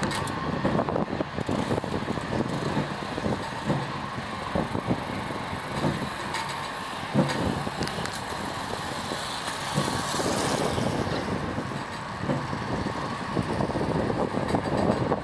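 ShinMaywa US-2 flying boat taxiing on the water, its four turboprop engines running steadily with a broad rushing noise; a brighter hiss swells around ten seconds in.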